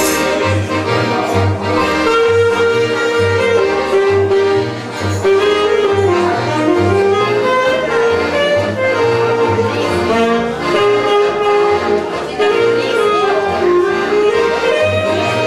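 Live dance music from a trio of saxophone, accordion and double bass. The saxophone carries the melody from about two seconds in, over accordion chords and a steady walking bass line.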